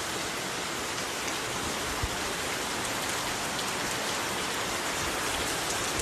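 Heavy rain pouring down: a steady, even hiss, with one soft low knock about two seconds in.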